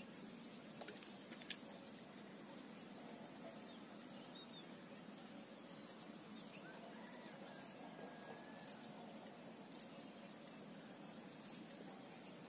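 Quiet outdoor ambience with a small bird repeating short, high double chirps roughly once a second, and a faint drawn-out whistle near the middle. A single sharp tick sounds about a second and a half in.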